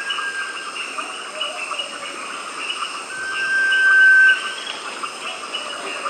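Sunbittern giving its long, thin, drawn-out whistle on one pitch. It swells in loudness for about a second and a half and stops sharply a little past the middle, after the fading end of an earlier whistle at the start. A steady chorus of insects shrills underneath.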